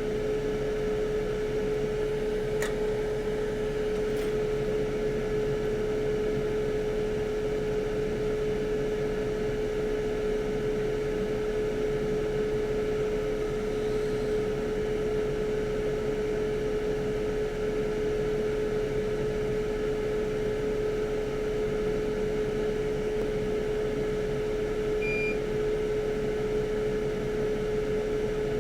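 Steady whir of a small fan motor running with a constant mid-pitched hum. There is a faint click about two and a half seconds in and a brief, short beep near the end.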